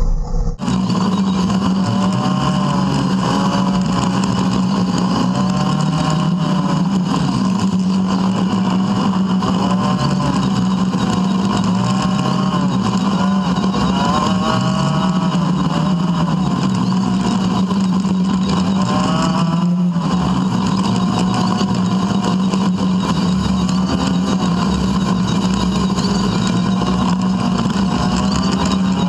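Polaris RZR 570 side-by-side's single-cylinder engine running while driving, its pitch rising and falling over and over as the throttle is worked.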